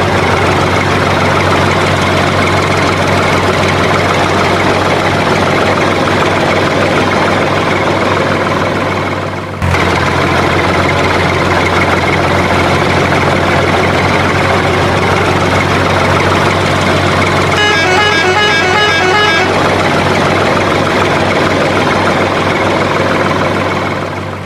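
Heavy truck engine running steadily at a deep rumble. The sound cuts out briefly and restarts about ten seconds in, and a horn gives a quick run of short toots about two-thirds of the way through.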